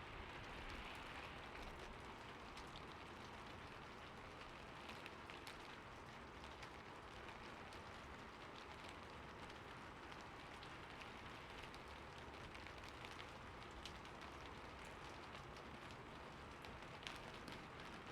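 Rain falling on a rooftop: a steady soft hiss of rain with scattered sharper drop ticks.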